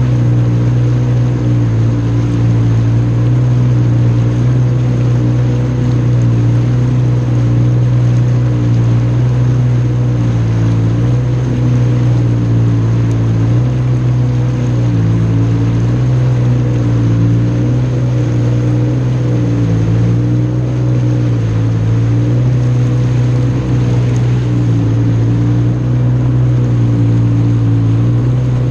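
Jet ski engine running steadily at a cruising pace, its pitch wavering slightly up and down with small throttle changes.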